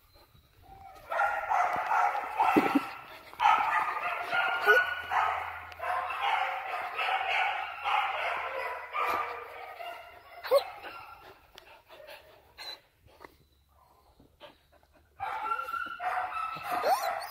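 Young dogs whining in long, high-pitched stretches, with a few short yips about ten seconds in. After a quieter spell the whining starts up again near the end.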